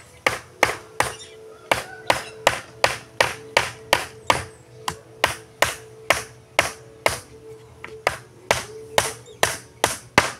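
Hammer driving nails into wooden boards: a steady run of sharp strikes, about two to three a second.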